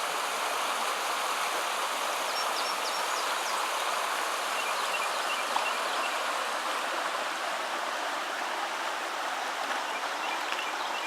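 Steady hiss of heavy rainfall, with a few faint high chirps over it.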